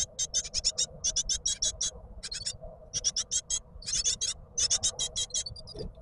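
Great tit nestlings begging: rapid, high-pitched chirps repeated several times a second in bursts with short gaps, as the parent bird arrives at the nest to feed them.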